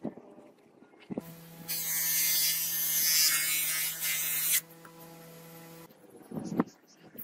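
Bench grinder motor running with a steady hum. For about three seconds a steel blade is pressed against the spinning wheel, giving a loud grinding hiss, then the hum carries on alone until it cuts off. A short clatter follows near the end.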